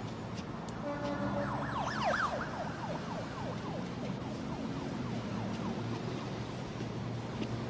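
Film soundtrack with street traffic noise and low held tones. About a second in, a fast warbling siren-like sweep of repeated rising chirps slows and sinks in pitch over two to three seconds.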